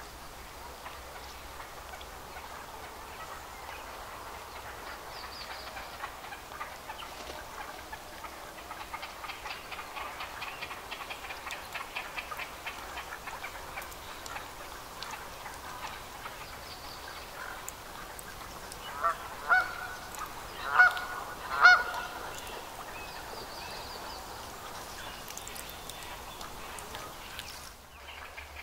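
A waterbird at the nest gives four loud, harsh honking calls in quick succession about two-thirds of the way through, the last two the loudest, over a faint steady background of bird chatter in the reeds.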